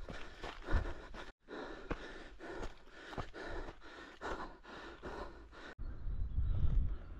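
A runner breathing hard in time with steady footfalls, about three a second. The sound breaks off abruptly twice, and a steady low rumble takes over near the end.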